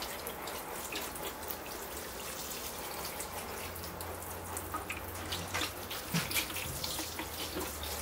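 A fine shower of water from a watering rose falling steadily onto a bonsai's sand-topped soil and splashing into the tray beneath, washing the excess top-dressing sand away.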